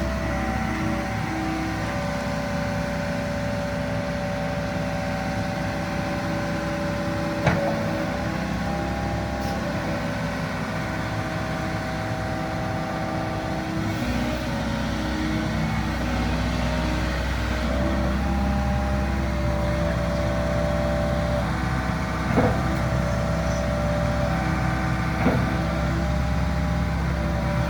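Hitachi ZX75UR-3 compact excavator's diesel engine running steadily with a whine over it, the engine note deepening and getting louder about halfway through. A sharp knock sounds about seven seconds in, and two more come near the end.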